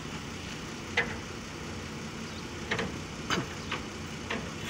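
Diesel engine of a UD Trucks boom truck idling steadily, with a handful of short sharp clicks and knocks over it.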